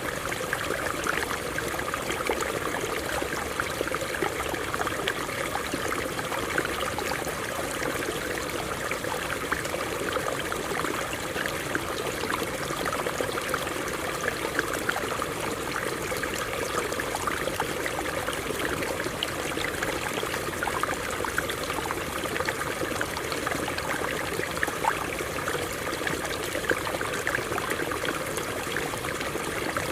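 Stream water running and splashing over rocks, a steady babbling rush.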